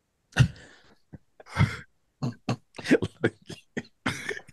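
A man's non-speech vocal sounds: two throat-clearing coughs, then a quick run of short, breathy voice bursts.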